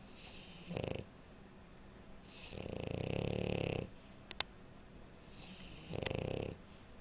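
French bulldog snoring: three snores, a short one about a second in, a longer, louder one in the middle and another short one near the end. A brief sharp click falls between the second and third snores.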